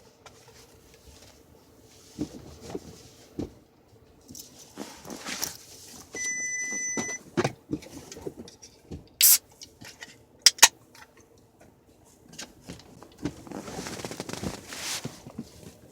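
People moving about inside a car: rustling and scattered clicks and knocks, with a short electronic beep about six seconds in and several sharp clicks a few seconds later.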